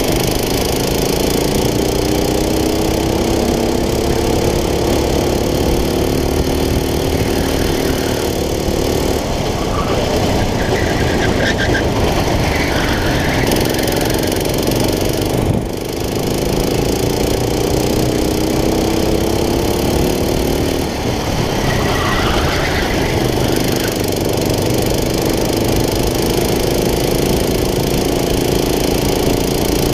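Go-kart engine at racing speed, heard from the driver's seat: its pitch climbs steadily along the straights and falls off twice as the kart slows for corners, over a steady rush of wind noise.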